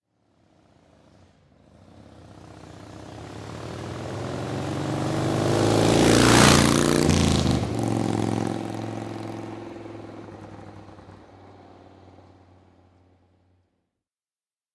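Motorcycle driving past: its engine grows from faint to loud over about six seconds, drops in pitch as it passes, then fades away over the next several seconds.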